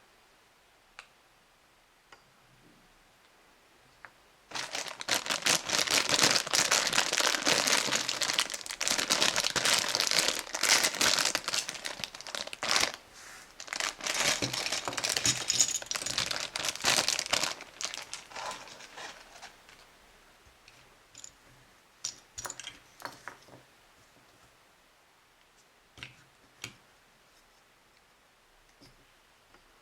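Plastic packaging crinkled and torn open by hand: dense crinkling for about thirteen seconds, then a few scattered clicks and rustles.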